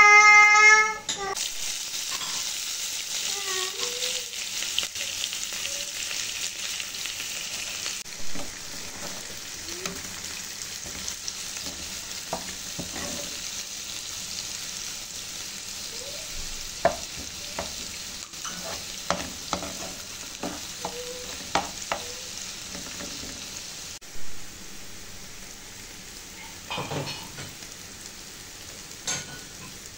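Chopped onions frying in hot oil in a pan, a steady sizzle, with a metal spatula scraping and tapping the pan as they are stirred; the sizzle eases off a few seconds before the end. A short high-pitched voice calls out right at the start.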